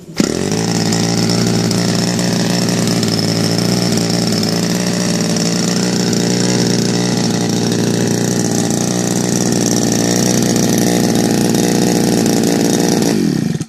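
Evolution 45 single-cylinder two-stroke gasoline model-aircraft engine with a CH CDI ignition, turning a 22-inch Xoar wooden propeller: it starts abruptly just after the beginning, runs at a steady speed, and cuts off shortly before the end. The engine is brand new and its cylinder head still cold, and it runs a little rich on a 22:1 fuel mix.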